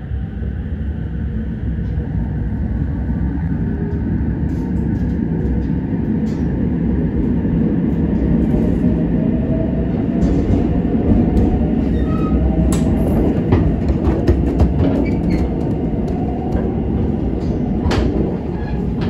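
Electric limited-express train pulling out of a station and gathering speed, heard from inside the carriage: a steady rumble of wheels and running gear that grows louder, with a faint rising whine as it accelerates. Two sharp clicks come in the second half.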